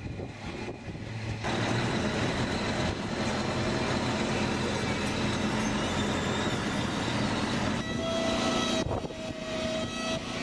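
Heavy tractor-truck engines running under load with road noise, hauling a locomotive on flatbeds, in a few clips cut together. A steady horn-like tone sounds for about two seconds near the end.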